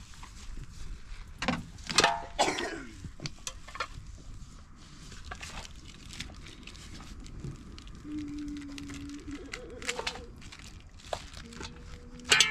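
Metal cooking pot and lid clattering as they are set down, with a loud clang and brief ring about two seconds in, then scattered light clicks and knocks of a knife cutting meat in the pot, and another sharp clatter near the end.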